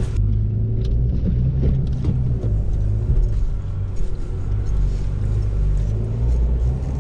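A 4WD's engine pulling the vehicle slowly up a soft sand track, heard from inside the cabin as a steady low drone. Occasional light knocks and rattles come from the body as it rocks over the ruts.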